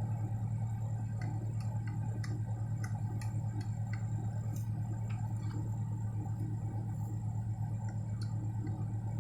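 1997 Toyota Camry engine idling, a steady low hum with an even pulse, with scattered light clicks of a screwdriver on the plastic steering-column trim screws.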